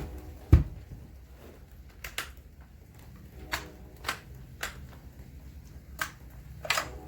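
A series of separate sharp clicks and knocks, about eight in seven seconds, some with a brief ring, over a low steady hum.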